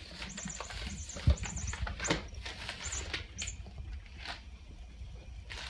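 A cat batting a wire cage ball toy across a hard floor: a string of short, high, light rattles and taps, with a heavier thump about a second and a half in.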